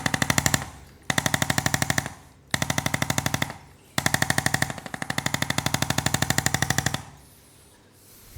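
Percussion massage gun hammering in rapid, even pulses, about a dozen a second, in short runs broken by brief pauses, the longest about three seconds, as it loosens the back muscles.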